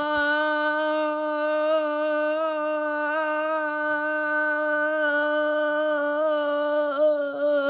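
A voice holding one long sung note, steady with a slight waver: a vocal imitation of an Emergency Alert System attention tone.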